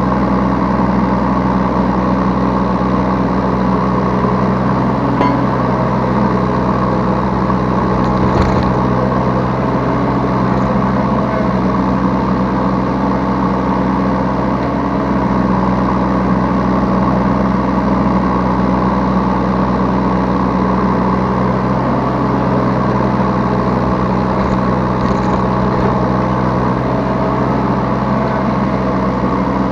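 Yanmar B3Σ 3-ton mini excavator's diesel engine running steadily, heard from the operator's seat, with a couple of brief knocks.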